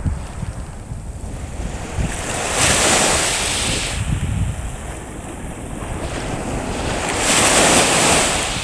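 Small sea waves breaking and washing up the shore, swelling into a hiss twice a few seconds apart, with wind rumbling on the microphone underneath.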